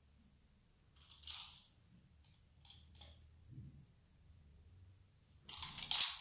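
Pizza-cutter wheel rolling through a thin sheet of pasta matta dough on baking paper: faint scratchy strokes, then a louder scraping rustle near the end.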